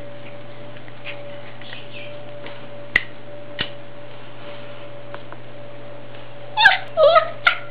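Puppy letting out a few short, high-pitched yips and squeals near the end, over a steady electrical hum. A single click comes about three seconds in.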